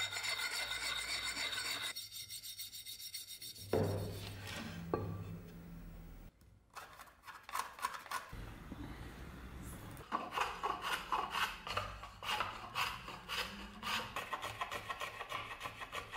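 Hand rasp shaping a beech axe handle, scraping in rhythmic strokes about two or three a second, with a single sharp knock about four seconds in.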